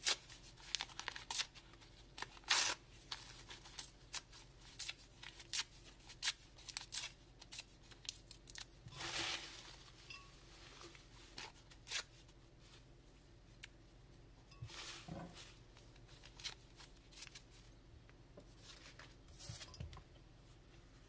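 Paper torn by hand into small scraps and pushed down into a glass jar: a run of short, dry rips and crinkles, dense in the first half and thinning out later.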